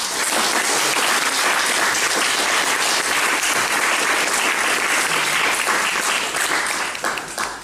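Audience applauding: many hands clapping together in a steady, even patter that dies away near the end.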